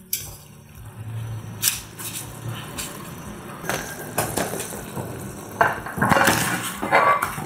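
Slices of pork belly going into a pot of boiling water to blanch: a few sharp knocks against the pot, then bursts of splashing, loudest about six seconds in.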